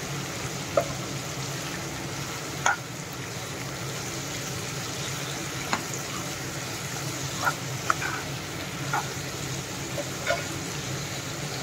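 Brinjal and capsicum pieces sizzling steadily in oil in a non-stick pan as they are stirred, with a few light clicks of the spatula against the pan. The pieces are being mixed with just-added turmeric and salt.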